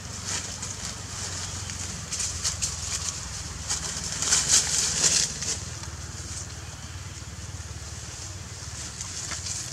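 Macaques scuffling and wrestling in dry leaf litter, with a burst of high, hissy noise about four to five seconds in. A steady low rumble runs underneath.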